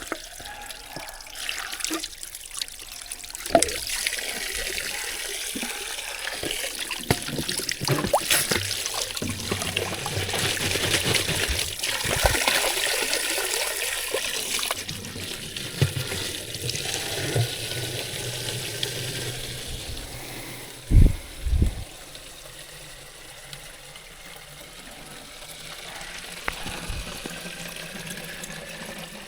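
Running water trickling and splashing, with scattered small knocks and two dull thumps about 21 seconds in.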